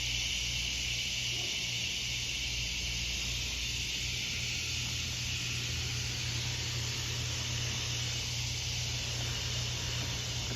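Dense, steady chorus of night insects, crickets and cicadas, shrilling as one continuous high-pitched hiss. A low steady hum runs underneath.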